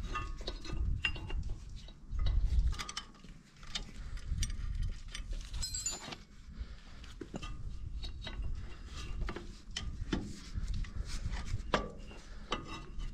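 Scattered light metallic clicks and clinks as gloved hands work a fan belt onto the pulleys of a Ferguson TEF20 engine, over a low rumble.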